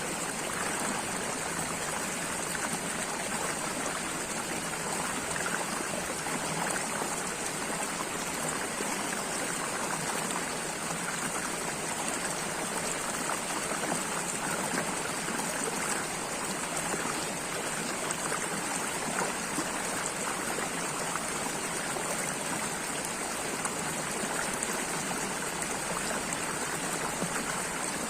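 Flowing water of a stream or small brook, a steady, even rush with fine splashing and trickling.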